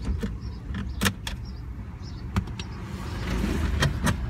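Sharp plastic clicks and knocks as the airbag cover of a 1997 Dodge Ram steering wheel is pried loose from the hub, about five in all, over a low steady rumble, with a short rushing swell near the end.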